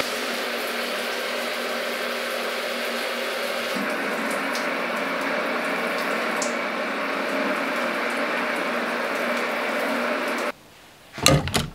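Water spraying steadily from an electric shower head, changing slightly about four seconds in and stopping abruptly near the end. A few short knocks or rustles follow.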